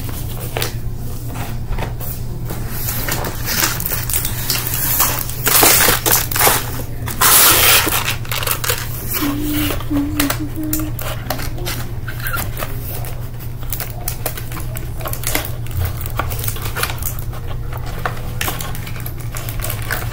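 Paper rustling and being handled, with many small clicks and taps from markers being picked up and set against the page; the rustling is loudest in two bursts about six and seven seconds in.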